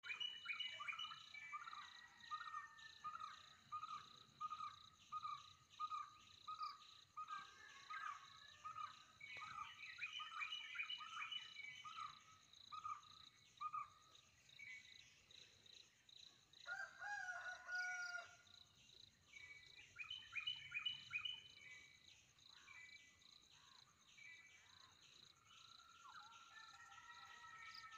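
Forest birds calling over a steady, high insect drone. One bird repeats a short note at an even pace for much of the first half, and other calls, including a few falling chirps, come and go.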